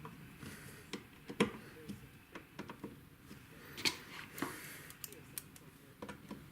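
Scattered clicks and light knocks of small hard parts and tools being handled, irregular, with the sharpest click about a second and a half in and another near four seconds.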